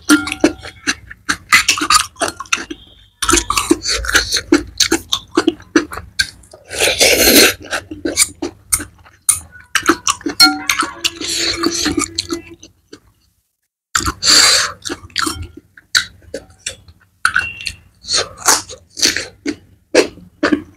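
Close-miked chewing of a mouthful of noodles, with rapid wet smacking clicks, broken by two longer noisy rushes, one about a third of the way in and one about two thirds in.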